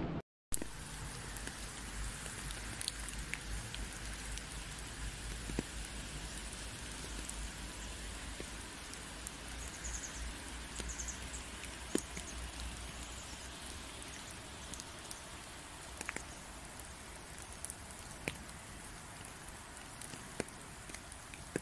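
Steady rain falling on a wet, leaf-strewn forest path: an even hiss with scattered single drops ticking close by. A low rumble runs underneath for the first half. The sound cuts out for a split second at the very start.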